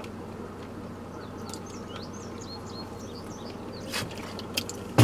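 Steady low hum of a car cabin, with faint short high chirps in the first few seconds and a few sharp clicks near the end.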